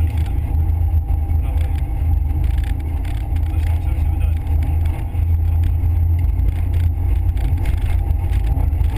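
Nissan Almera GTI rally car's 2.0-litre four-cylinder engine running hard under load, heard from inside the cabin as a loud, deep drone. Gravel spatters and crackles against the underside throughout.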